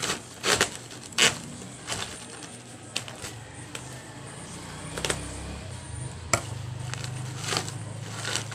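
Woven polypropylene sack being ripped by hand into strips for tying: about eight short, sharp rips, roughly a second apart.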